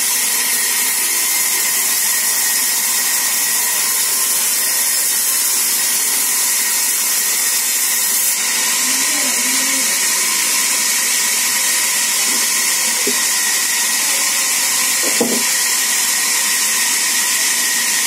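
Sawmill band saw running and cutting mango wood boards: a steady high hiss with a faint steady whine, and a short knock about fifteen seconds in.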